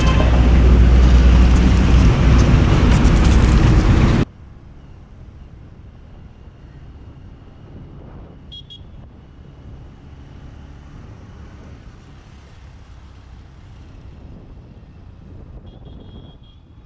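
Loud road-traffic rumble close to the microphone that cuts off abruptly about four seconds in. After that comes much quieter, steady distant traffic, with a few faint high chirps.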